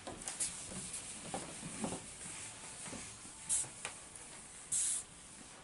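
Handheld dry-erase eraser rubbing across a whiteboard: soft scrubbing strokes, with a short louder swipe about three and a half seconds in and a longer, loudest swipe near the end.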